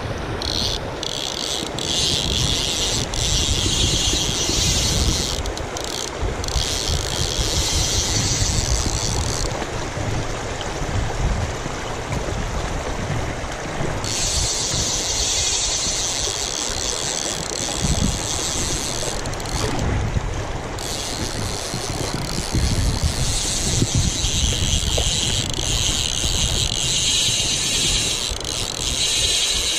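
Fly reel's ratchet drag buzzing as a hooked barbel pulls line off the spool, in three long spells with short breaks between, over a steady low rush of river water.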